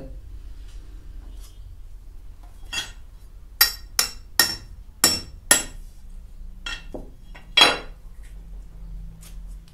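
A long iron rod, used as a nail, struck again and again with a metal tool to punch a hole through a mango seed resting on a wooden block: about eight sharp metallic clinks with a short ring, starting about three seconds in, the last one the loudest.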